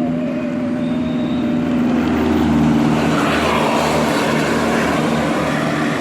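A bus engine runs steadily as a tour bus passes close by. A rush of tyre and wind noise swells a few seconds in and then eases.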